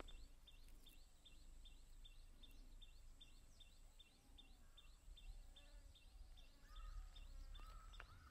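Faint outdoor farmland ambience: a short high chirp repeats about three times a second, with a few soft bird calls in the second half and a low rumble underneath.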